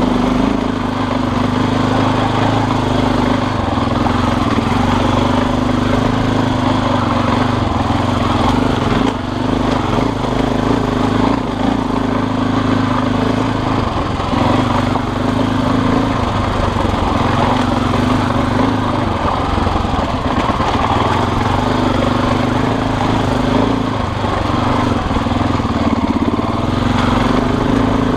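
Motorcycle engine running steadily, its pitch holding nearly constant with only small dips.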